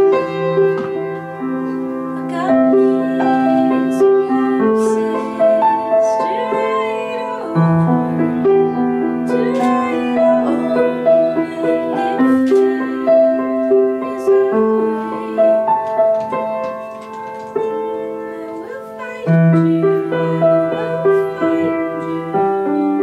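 Grand piano played solo: a slow piece with low bass notes held for a few seconds each under a repeating higher melodic figure.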